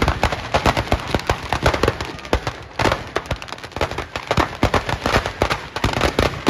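Firecrackers going off in a rapid, irregular string, several loud bangs a second.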